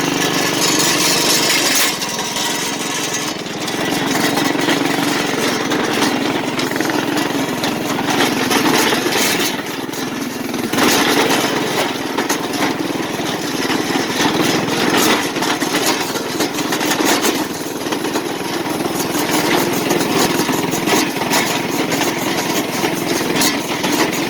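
Yerf Dog go-kart's small gas engine running while the kart is driven easy over a dirt track, the engine note swelling and easing, with frequent knocks and rattles from the ride.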